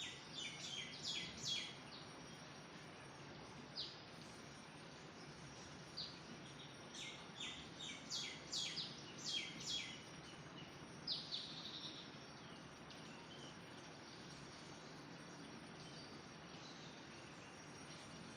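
Birds chirping in quick, sharp bursts of short high notes, thick in the first ten seconds and dying away after about twelve seconds, over a steady faint background hiss.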